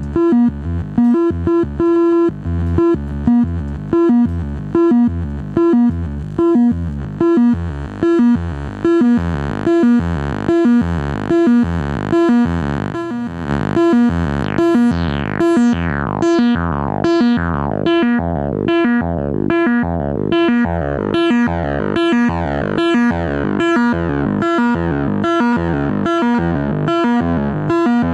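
Korg ARP 2600 analog synthesizer playing a repeating sequenced bass pattern of short notes, about two a second. From about halfway in, falling sweeps in the upper range come in over each note.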